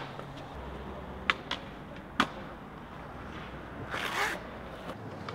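Skateboard on a concrete sidewalk: sharp wooden clacks of the board popping and landing, loudest a little over a second in and about two seconds in, followed near four seconds by a short hissing scrape.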